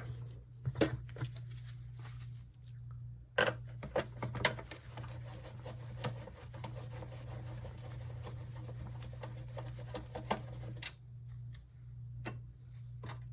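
Screws being unscrewed from a plastic housing on an LCD monitor's stand: scattered sharp clicks and light scraping of tool and screw on plastic, spaced irregularly, over a steady low hum.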